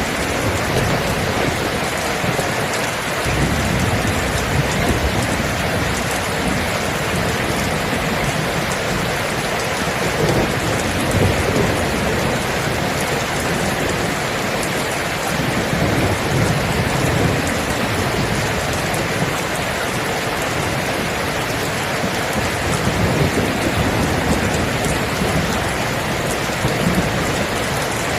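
Steady heavy rain hissing, with low thunder rumbling in repeated swells that begin a few seconds in.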